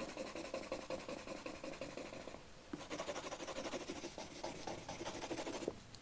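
Purple coloured pencil scribbling fast back and forth on sketchbook paper in rapid, even strokes, with a short pause about two and a half seconds in.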